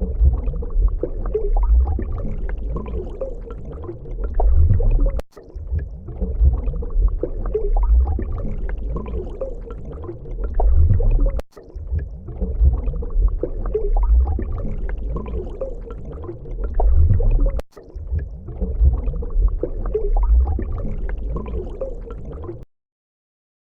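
Water churning and gurgling with a heavy low rumble and scattered bubbling, as of something large swimming through a pool. It repeats in about six-second stretches, each broken off by a short gap, and stops near the end.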